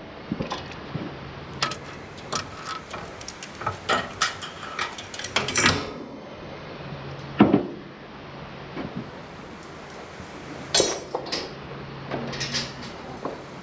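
Hand-ratchet come-along being let off: irregular metallic clicks and clanks of its pawl, hook and chain, with a few louder knocks of metal on metal.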